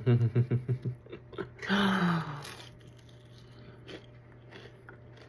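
A bite into a fried crab rangoon's crisp wonton wrapper, with a crunch about two seconds in, followed by quiet chewing with a few faint clicks.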